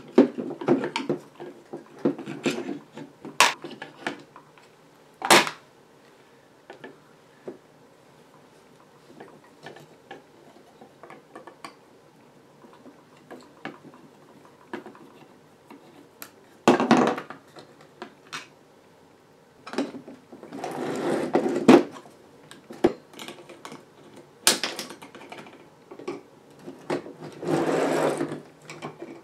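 Hand tools and small metal parts handled on a workbench while an old amplifier is taken apart: a screwdriver working screws out of the bakelite front panel, then pliers in the wiring. Irregular sharp clicks and clatter of screws and parts set down, with several bursts of scraping and rustling.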